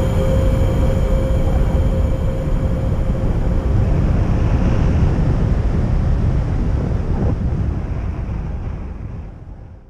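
Wind rushing over an action camera's microphone in paraglider flight: a loud, steady low rumble that fades out near the end.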